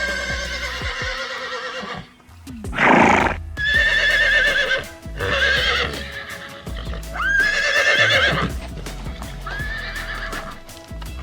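Horse whinnying about five times, each call rising sharply then quavering, with a short breathy burst about three seconds in. Background music plays underneath.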